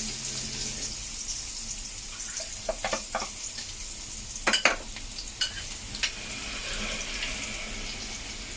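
Garlic and green chillies sizzling in a little hot oil in a pan, a steady high hiss, with a few sharp clicks of a utensil against the pan, the loudest a double click about halfway through.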